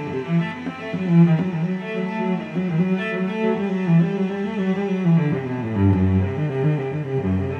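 Background music: a bowed string instrument playing a slow melody of held notes, dropping to a lower note near the end.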